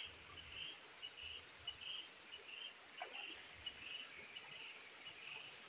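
Insects in the surrounding vegetation: a steady high buzz with a short chirping call repeating about twice a second, faint.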